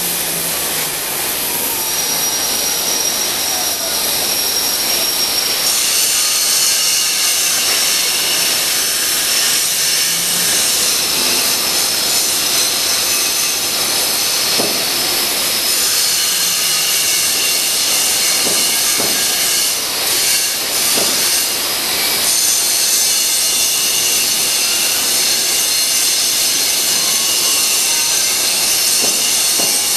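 Steady, loud hiss of factory machinery while an EPS foam 2D CNC shape-cutting machine runs a cut, with faint motor whines gliding slowly up and down in pitch now and then.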